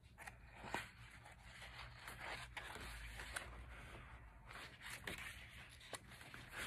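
Faint rustling and sliding of thick photobook pages being turned by hand, with a few soft taps.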